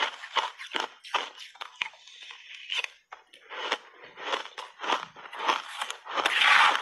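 Crunchy shaved ice being bitten and chewed close to the microphone: a rapid run of sharp crunches, with a longer, louder crunch near the end.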